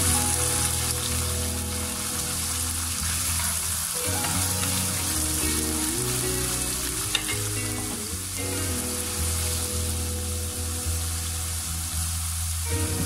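Carrots and Brussels sprouts sizzling in hot oil in a wok as they are stirred with a wooden spoon, a steady crackling hiss. Soft background music with held chords plays underneath.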